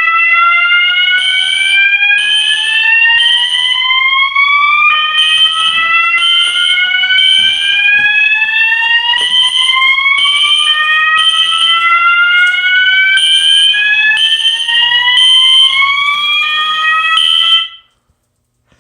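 Fire alarm horns, a System Sensor SpectrAlert Classic and MASS ADA, sounding together after a smoke detector test sets off the system. A high horn tone pulses on and off over a run of slow rising whoop tones, and all of it cuts off abruptly near the end.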